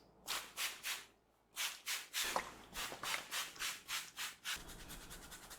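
Hands rubbing through hair on the scalp in quick, even strokes, about four a second, during a head massage. There is a short pause about a second in, and the strokes turn softer and quicker near the end.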